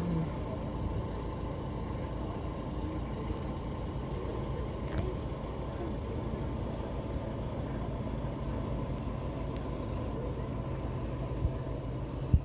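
Miniature railway locomotive's diesel engine idling steadily, with one sharp click about five seconds in and two short thumps near the end.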